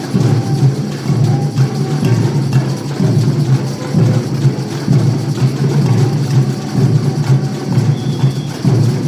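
Band playing music in rehearsal, with drums and percussion keeping a steady beat over a heavy low end.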